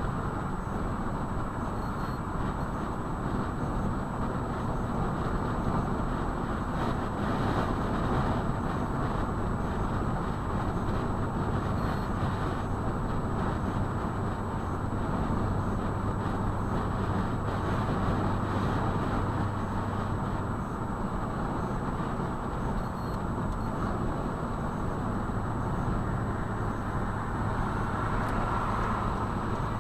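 A motor vehicle running with steady road and engine noise and a low, even hum throughout.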